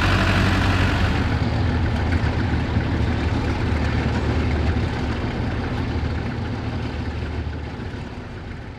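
Tractor engine running with a steady low hum, its higher sound dropping away about a second in, then growing gradually fainter toward the end.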